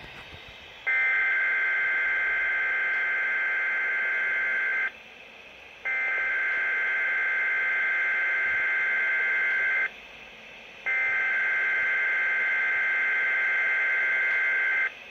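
Emergency-alert SAME data header of a Weather Radio Canada required weekly test, received over a weather radio: three buzzy bursts of warbling data tones, each about four seconds long, with about a second of hiss between them.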